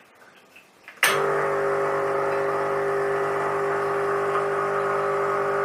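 Espresso machine pump switched on about a second in with a click, then running with a steady hum as fresh water flushes through the group head, purging it after cleaning.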